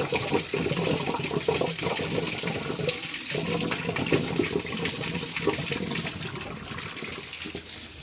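Dirty coolant pouring out of a radiator through a pulled-off hose and splashing onto the ground in a steady stream, easing off a little near the end.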